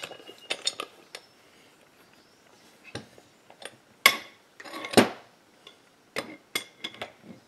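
Steel hand tools and the parts of a crankcase puller clinking and knocking against each other and the saw's crankcase as the puller is taken apart. A short quiet spell comes about a second in, and the two loudest clanks fall near the middle.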